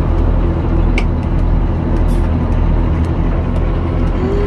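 Tour boat's engine running steadily as the boat pulls away from the dock: a loud, even, low hum.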